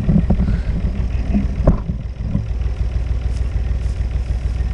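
Wind buffeting the camera microphone: a steady, uneven low rumble. About a second and a half in there is a sharp knock from the camera being handled, with a few smaller bumps just before it.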